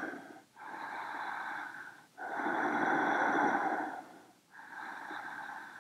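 A woman breathing deeply and audibly, with slow alternating inhales and exhales. Each breath lasts about one and a half to two seconds, with short pauses between.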